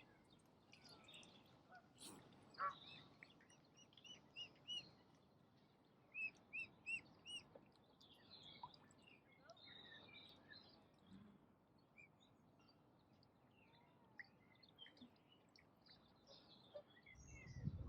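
Faint bird chirping and peeping: scattered short high chirps, with two quick runs of four clear rising-and-falling notes.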